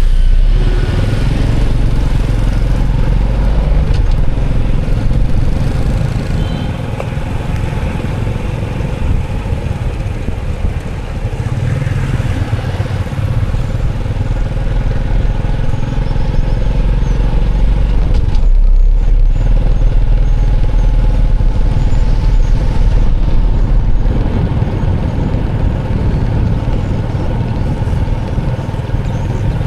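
Steady low rumble of a running motor vehicle, with a haze of road or wind noise over it.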